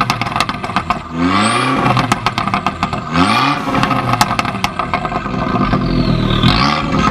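Abarth 695 Biposto's 1.4 turbo four-cylinder, through an Akrapovic exhaust, blipped three times. Each rev rises and falls quickly and is followed by a rapid string of pops and crackles from the exhaust on the overrun.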